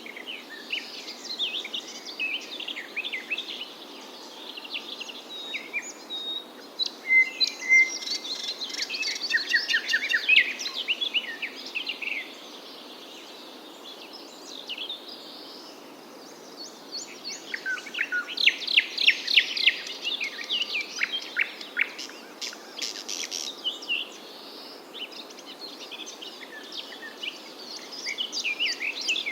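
Small songbirds chirping and singing in clusters of quick chirps and rapid trills, with lulls between, over a steady background hiss.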